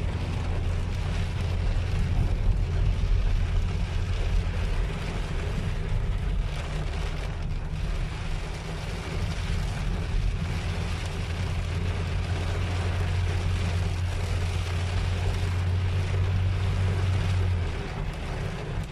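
Heavy rain and gusting wind beating on a car, heard from inside the cabin as a dense, loud rush. Under it runs a steady low hum from the car that cuts off near the end.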